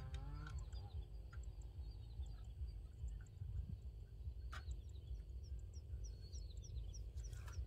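Domestic fowl call with a wavering pitch in the first half-second, then small birds chirping repeatedly over a steady low rumble. A single sharp click about four and a half seconds in.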